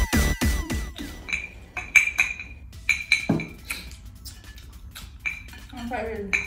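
Chopsticks clinking against ceramic bowls while people eat, and a drinking glass set down on the table: a string of sharp, light clinks, each with a short ring, coming irregularly a few times a second.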